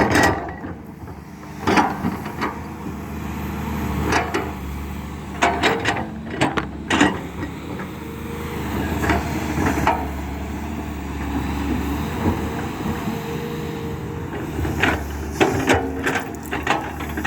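Backhoe excavator's diesel engine running steadily, with sharp clanks and knocks from the working machine at irregular intervals, several close together near the middle and again near the end.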